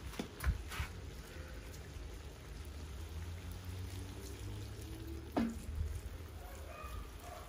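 Water being poured into a kazan of frying meat, vegetables and buckwheat, a low steady pouring wash with a few sharp clicks, the clearest about five seconds in.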